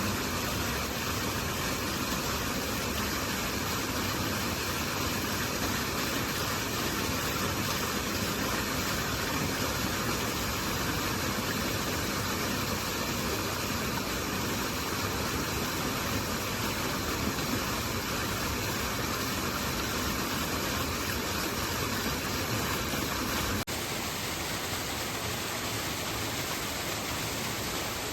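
Great Langdale Beck, a rocky river, rushing and splashing over stones in a steady, even wash of sound. Near the end it changes abruptly to a slightly quieter stretch of flowing water.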